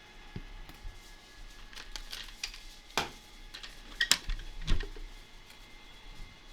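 Scattered light clicks and taps of objects handled on a workbench during circuit-board inspection, with a few sharper taps about three, four and nearly five seconds in, over a faint steady low hum.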